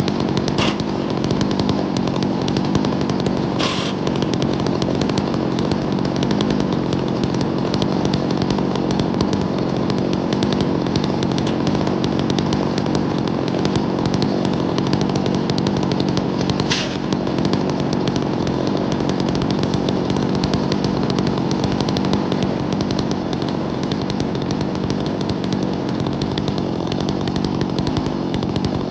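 Chainsaw on a chainsaw mill running steadily under load as it rips lengthwise through a sweet gum crotch, the engine pitch holding level throughout, with a few faint clicks.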